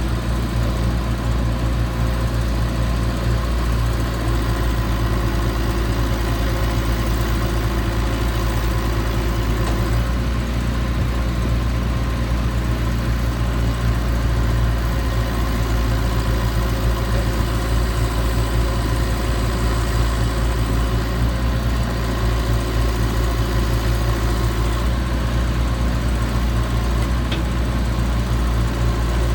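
John Deere 410E backhoe loader's diesel engine running steadily at a constant speed, with no revving.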